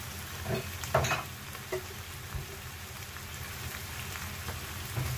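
Baby squid and onions sizzling in sauce in a nonstick frying pan: a steady hiss, with a few faint knocks in the first couple of seconds.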